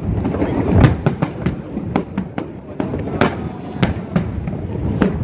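Aerial firework shells bursting in quick, irregular succession: sharp bangs several times a second over a continuous low rumble, the loudest about a second in.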